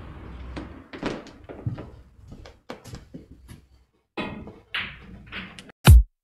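Scattered knocks and thuds in a small room. Near the end a deep bass thump, much louder than the rest, starts electronic dance music.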